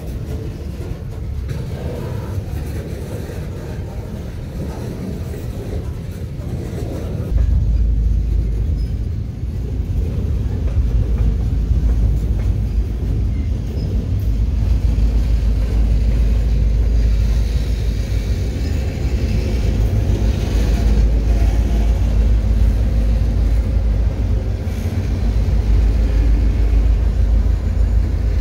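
Steel-wheeled freight gondola cars rolling past on jointed track in a continuous low rumble. About seven seconds in, a deeper rumble sets in. Near the end, the rear diesel locomotives come alongside.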